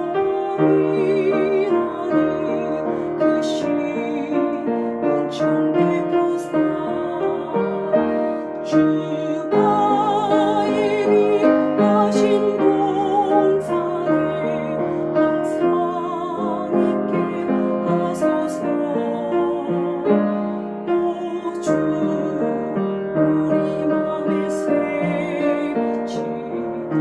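A woman singing the alto part of a Korean church hymn, her held notes wavering with vibrato, over a piano accompaniment.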